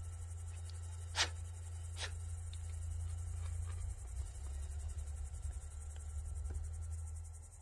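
Insects chirping in a steady, fast high trill over a low steady rumble, with two sharp clicks about one and two seconds in.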